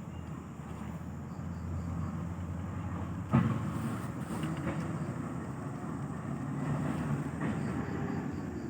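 A steady, low engine-like rumble, with a single sharp knock about three and a half seconds in.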